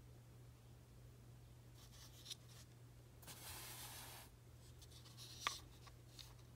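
Faint handling noise of fingers shifting and rubbing on a polymer pistol frame: a soft rub about halfway through and a few small clicks, the sharpest tick near the end, over a low steady hum.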